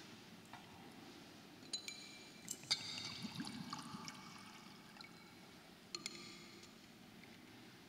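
Metal and glass altar vessels clinking: a few light knocks with short, high ringing, the loudest about three seconds in, during the purification of the chalice after Communion.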